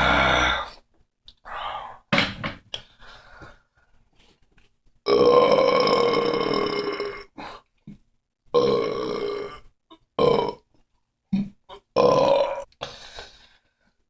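A man belching over and over: several short burps and one long, drawn-out pitched belch of about two seconds in the middle.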